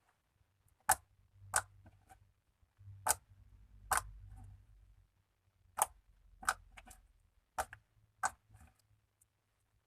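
Slime being pressed and poked, popping with sharp clicks: eight in all, in four pairs.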